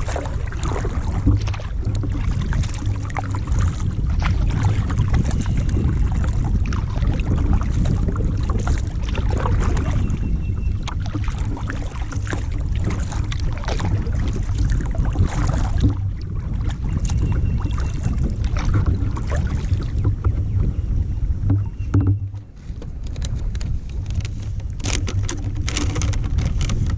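Wind rumbling on the microphone while kayaking, with irregular splashes and drips of paddle strokes in the water.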